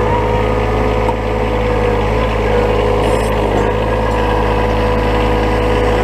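John Deere 1023e sub-compact tractor's three-cylinder diesel engine running at a steady speed as the tractor drives, with a steady whine over it.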